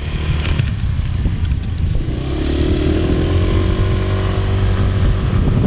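Motorbike engine running as the bike pulls away carrying two riders. From about two seconds in, its pitch rises as it speeds up and then holds steady.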